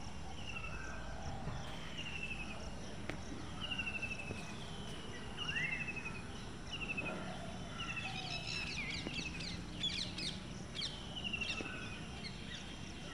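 Birds calling outdoors: a short falling trill repeats about once a second, and a burst of quick, sharp chirps joins in about eight to ten seconds in.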